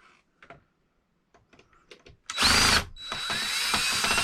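Power drill driving a screw to fasten an electrical outlet box. After a few faint handling clicks comes a short burst about two seconds in, then a longer run near the end, its motor whine rising in pitch.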